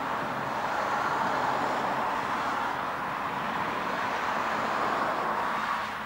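Road traffic: a car driving past, its tyre and engine noise a steady rushing sound that swells and then falls away just before the end.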